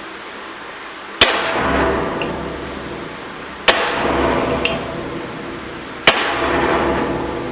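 Hammer striking a pin punch three times, about two and a half seconds apart, each blow ringing out metallically, driving a stuck set pin out of a Yost bench vise.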